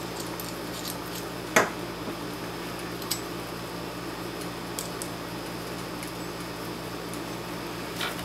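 Small aluminium gimbal parts and screws being handled and fitted together, giving a few light metal clicks, the sharpest about one and a half seconds in, over a steady low hum.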